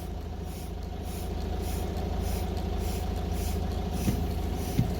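Renault Clio's 1.5 dCi diesel engine idling steadily, with the windscreen wipers sweeping in a quick repeating swish after the rain sensor has been triggered by water. There are two light knocks near the end.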